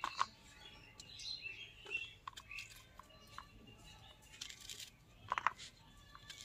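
Sharp crunching clicks in several short bursts as a curved hand blade cuts through firm, raw green jujubes. Small birds chirp faintly in the background.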